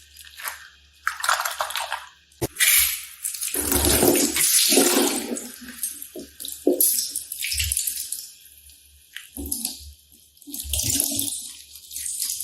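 Slime being handled: wet squelching noises in irregular bursts, the longest and loudest a few seconds in.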